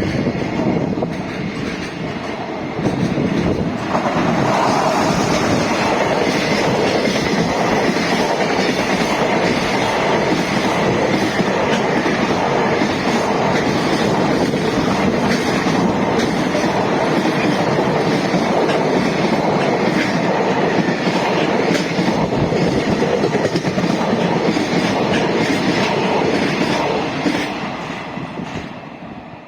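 Freight train passing close by, its wheels clattering steadily over the rail joints. It grows louder about four seconds in and fades away near the end as the train goes past.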